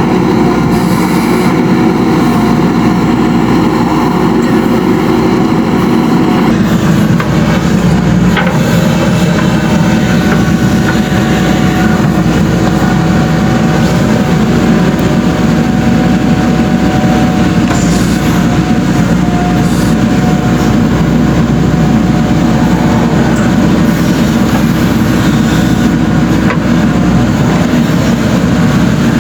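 JCB 3DX Super backhoe loader's diesel engine running with a steady, even drone.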